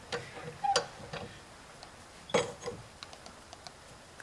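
Hand-cranked roadside car jack being turned to raise the car, its metal parts giving off irregular sharp clicks and small ticks with each turn of the handle.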